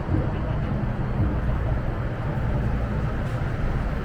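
MTR M-train running between stations: a steady low rumble with a faint constant hum.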